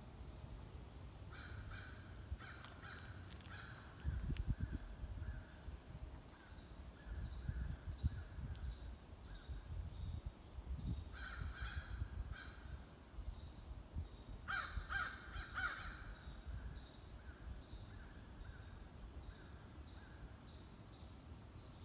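Crows cawing in several short runs of calls, the loudest cluster a little past halfway, over a low rumble on the microphone.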